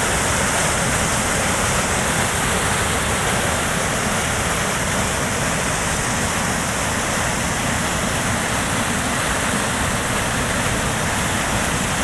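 Small stepped waterfall on a stream, white water pouring over a low ledge in a steady, even rush.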